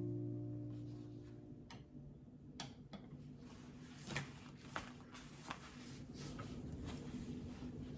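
A guitar chord dies away, then faint scattered clicks and light knocks, as of small objects being handled and set down, over a low steady hum.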